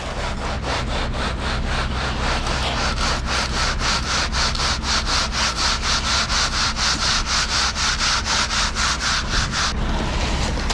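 Wet concrete being screeded: a straightedge board sawed back and forth across the forms, making a rhythmic scraping of about four strokes a second that stops abruptly near the end.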